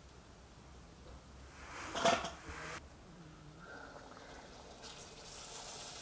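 Urad dal batter sizzling as it is dropped from a ladle into hot oil in an iron kadai, the hiss building from about five seconds in. Before that, a short loud burst of hiss and clatter about two seconds in that cuts off suddenly.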